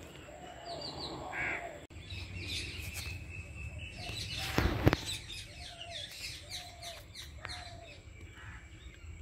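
Birds chirping and calling in short repeated notes, with one brief loud rustle or knock about halfway through.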